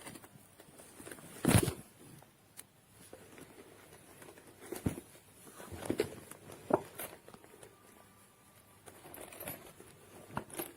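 A few scattered knocks and bumps with light rustling, the kind made when objects are being handled; the loudest knock comes about a second and a half in.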